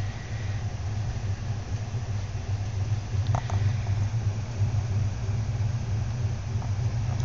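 Passenger train heard from inside the carriage as it pulls away from a station: a steady low rumble of the running train that slowly grows louder as it gathers speed, with a few brief clicks a little over three seconds in.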